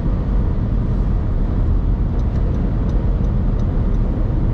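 Steady low rumble of road and engine noise heard from inside a car cruising at highway speed, around 110 km/h.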